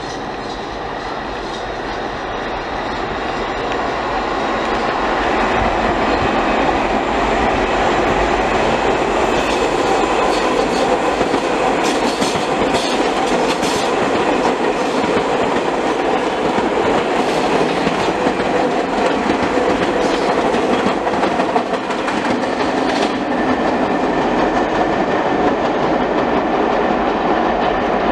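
New York City subway train approaching and then running past at speed, its steel wheels clattering over rail joints. The sound grows louder over the first few seconds, then holds as a steady rumble with sharp clicks scattered through it.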